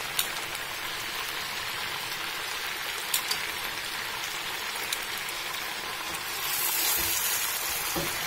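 Chicken leg pieces sizzling in hot oil in a pan, with the marinade liquid cooked off so the meat is now frying. A steady sizzle runs throughout, with a few light clicks, and it grows louder about six and a half seconds in.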